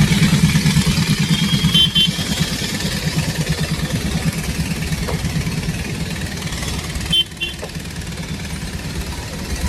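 A motor vehicle engine running steadily close by, with a rapid even pulse that eases off slightly. Two brief high double beeps come about two seconds in and again near seven seconds.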